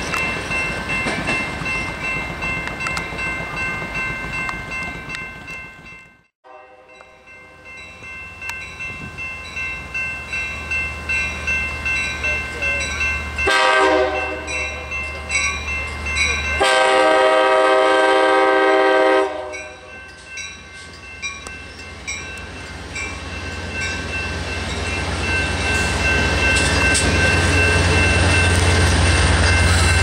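Passenger train passing with a rhythmic clatter of wheels over the rail joints, then, after a cut, a diesel commuter train approaching and sounding its horn: faintly at first, then a short blast and a long blast of about three seconds. The locomotive's low engine rumble then grows steadily louder as the train passes close by.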